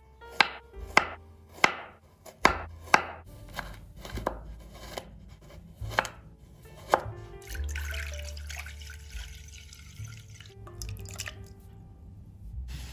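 Kitchen knife chopping a carrot on a wooden cutting board: about a dozen sharp knocks over the first seven seconds. After that comes a steady watery hiss, with the carrot sticks in a pot of water near the end.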